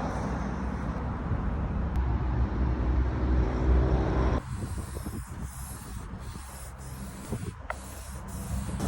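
Scratchy rubbing and hissing of paint being worked onto a wooden surface, over a low steady rumble. The sound changes abruptly about four seconds in to a lighter hiss broken by short gaps, like separate strokes.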